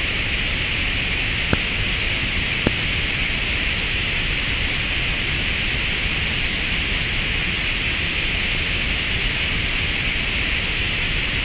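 Small rocket engine firing steadily onto concrete, a loud even rushing noise, with two sharp clicks about one and a half and two and a half seconds in.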